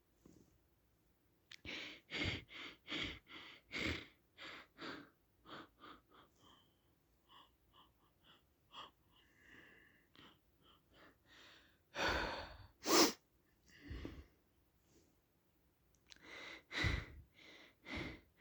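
A person's quick, catching breaths and gasps as a sneeze builds, then one sharp sneeze about two-thirds of the way in, with more short breaths after it.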